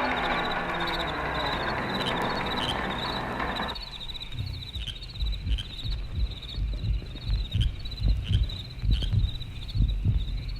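Crickets chirping in a steady, rapid trill. A dense rushing noise underneath cuts off suddenly a few seconds in, and irregular low thuds then start up under the crickets.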